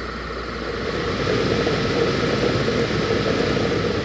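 2016 Acura RDX's heater blower motor spinning up and running steadily, the air rush growing louder over the first second or so, with the engine idling underneath. It runs without the squeal it had been making, which the owner puts down to something that had been caught in it.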